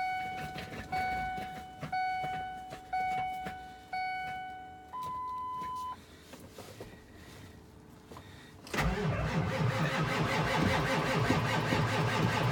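Dashboard warning chimes ring about once a second during the glow-plug wait, ending in one longer, higher tone. About nine seconds in, the 7.3-litre Power Stroke V8 turbo-diesel cranks and catches on a cold start, then runs loudly.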